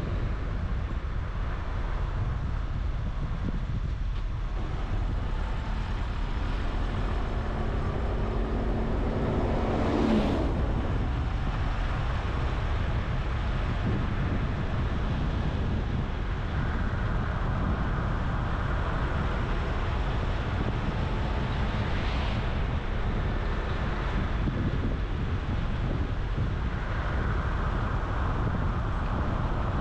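Car on the move: steady engine and road rumble. About ten seconds in there is a brief swell with a rising tone.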